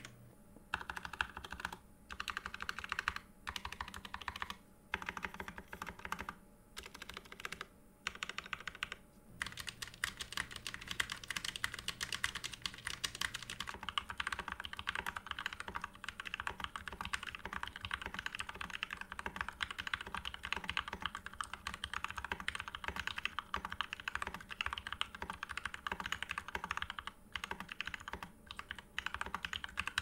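Typing on a Magicforce 68 mechanical keyboard, its keys clacking: short bursts with pauses at first, then fast continuous typing from about nine seconds in.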